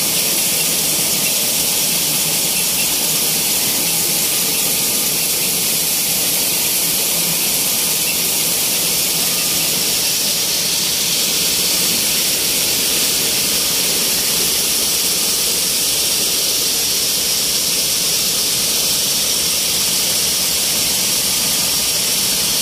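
Small flour mill (atta chakki) machinery running: electric motor, belt drive and grinding mill giving a loud, steady high-pitched hiss that does not change.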